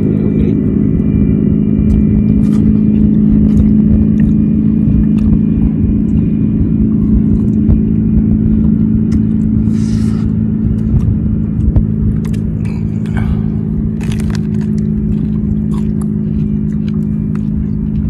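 A steady, low engine drone with an unchanging pitch, with scattered small clicks and crackles from hands working through shell-on shrimp and from eating.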